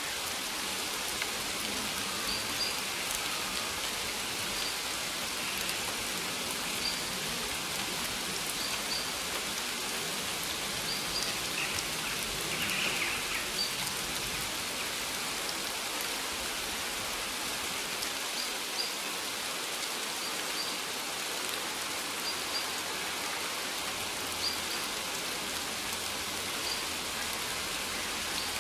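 Steady rain falling on maize plants, an even hiss, with faint short high chirps about every two seconds.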